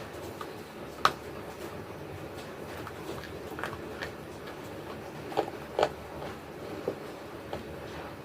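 Sharp crunches of dry clay being bitten and chewed, one loud bite about a second in and a cluster of crunches around five to seven seconds in.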